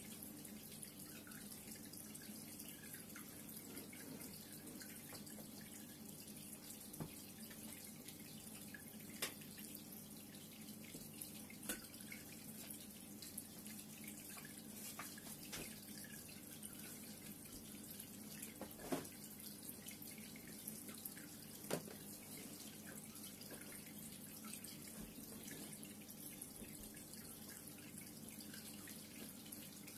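Reef aquarium water circulating: a faint steady trickle over a low hum, with scattered drip-like plinks, a few of them sharper.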